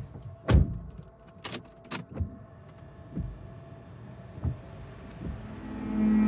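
Opening of a dark ambient track: scattered clunks, knocks and clicks, several with a low thud, over a faint hiss, like mechanical foley. Near the end a loud, steady low drone swells in.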